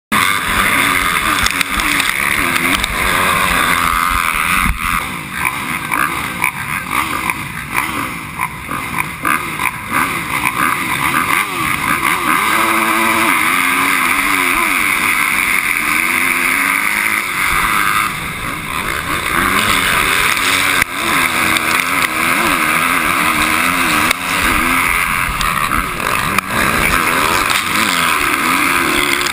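Several motocross dirt bike engines revving at the start gate and then running hard as the pack races off, their pitch rising and falling, heard from a helmet-mounted action camera.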